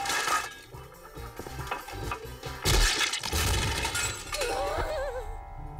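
Cartoon crash sound effects of a makeshift ladder built from junk wood and metal shaking and then collapsing, with a loud crash and clatter about three seconds in, over background music. A wavering, warbling tone follows near the end.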